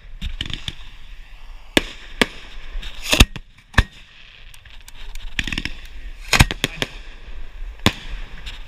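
Fireworks going off close by: about a dozen sharp bangs at irregular intervals, the loudest about three seconds in and again past six seconds.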